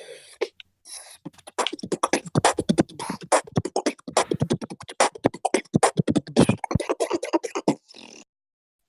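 Beatboxing: a fast run of vocal percussion, rapid kick, snare and hi-hat sounds made with the mouth, starting about a second and a half in and stopping sharply near the end.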